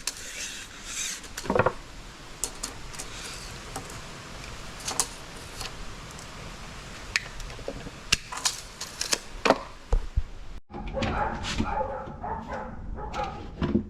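Scattered knocks and clicks as plywood boards are handled and moved about, with a sudden break about ten and a half seconds in and busier clattering after it.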